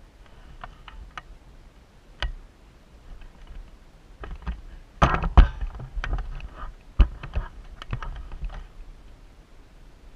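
Irregular sharp clicks and knocks, with a dense burst of them about five seconds in and a single loud knock about two seconds later.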